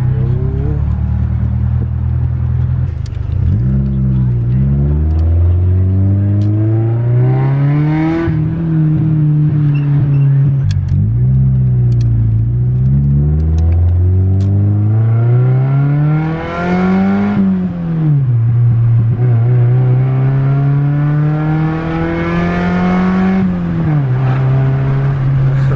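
Honda Civic four-cylinder engine accelerating hard, its pitch climbing in about four long pulls, each dropping away suddenly at a gear change or lift off the throttle.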